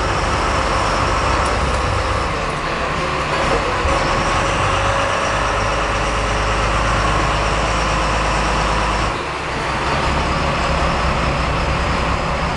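Sportfishing boat's engine running steadily, a low hum under a broad rush of noise, dipping briefly about nine seconds in.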